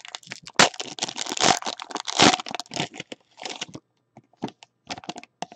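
Foil trading-card pack wrapper crinkling and rustling for about three seconds, then cards being handled and shuffled, heard as scattered small clicks and rustles.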